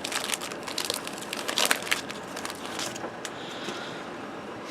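Crinkling and crackling of a trading-card pack wrapper being opened and handled, with the cards shuffled out; busiest in the first three seconds, then quieter.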